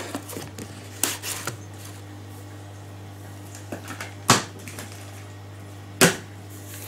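Plastic film crinkling as it is peeled off a plastic food tray, followed by two sharp knocks about two seconds apart, the loudest sounds, over a steady low hum.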